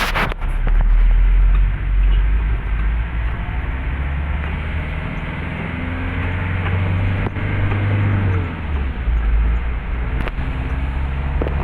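Vehicle driving through heavy rain: a steady low rumble of engine and tyres under an even hiss of rain, with a couple of faint clicks.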